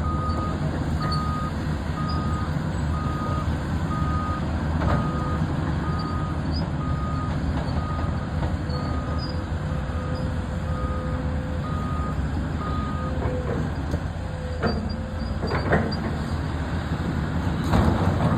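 John Deere 670P heavy machine's diesel engine running steadily while its backup alarm beeps about once a second; the beeping stops about 13 seconds in. A few knocks follow near the end.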